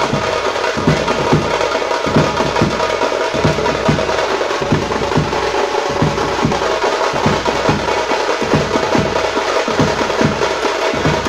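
Fast, drum-driven music with rapid percussion strokes over steady held tones.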